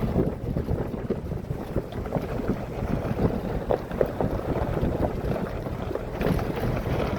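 1999 Ford F-150 pickup driving slowly over a rough dirt and gravel trail: a steady low rumble of engine and tyres, with frequent small knocks and rattles from the body and suspension.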